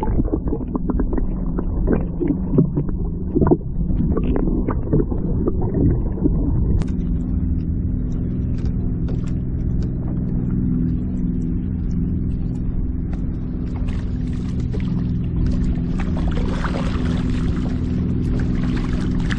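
A steady low hum runs throughout, with scattered clicks in the first several seconds. Near the end a hooked African pompano (kagami) thrashes at the surface beside the kayak, splashing water.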